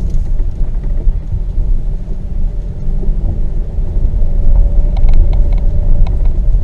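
Car driving slowly over a rough dirt track: a steady low rumble of tyres and suspension on the uneven ground, with a cluster of light clicks and rattles about five seconds in.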